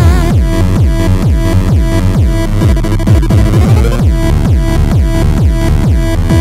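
Electronic music with a steady, driving beat.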